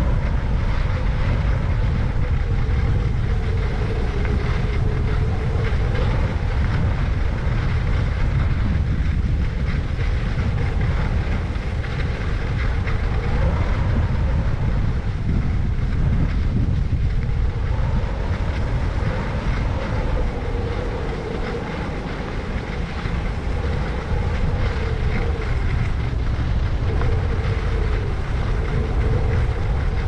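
Skis running over snow with wind buffeting a helmet-mounted GoPro's microphone: a steady low rumble and hiss.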